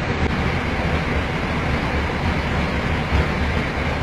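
Steady rushing cabin noise of an airliner's flight deck in flight: airflow and engine noise with a heavy low rumble.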